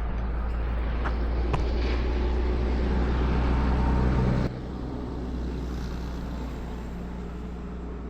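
A car on the road, approaching and growing louder, then cut off abruptly about four and a half seconds in, leaving quieter steady road noise.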